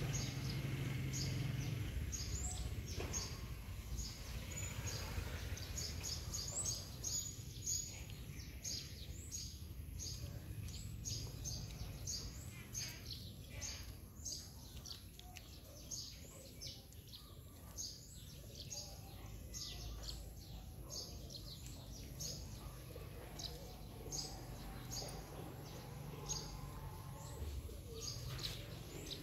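Small birds chirping: short, high chirps repeated several times a second, over a low, steady outdoor rumble.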